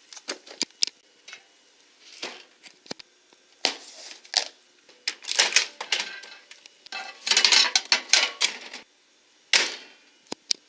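Irregular clicks, taps and short clattering scrapes of small hard objects being handled, coming in quick clusters with short pauses between them.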